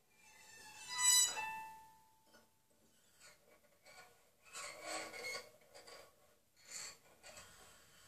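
Violin bow drawn slowly across the high strings of a harp, giving squeaky, creaking pitched tones like a door squeak. The loudest stroke comes about a second in, followed by quieter, scratchier strokes in the middle and near the end.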